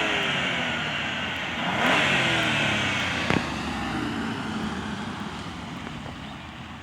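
2014 Audi A6 3.0T's supercharged V6 accelerating hard, as in a launch-control take-off. The engine note climbs and drops back at the gear changes, then fades steadily as the car gets farther away. There is a sharp click a little over three seconds in.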